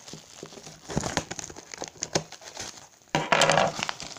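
Minifigure packaging being handled and pulled open, crinkling and crackling in irregular bursts, with one louder tearing rip about three seconds in.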